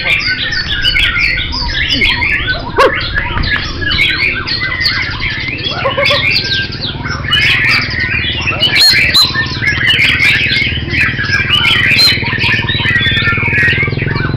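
Many caged songbirds singing at once, a dense chorus of overlapping rapid chirps, trills and whistles, over a steady low background rumble.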